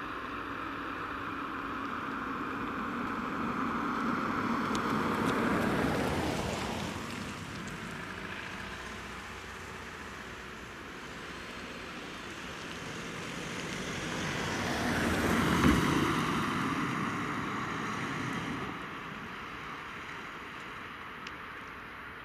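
Two fire engines driving past one after the other, their engine and tyre noise swelling and fading away. The first is loudest about five seconds in, the second about fifteen seconds in.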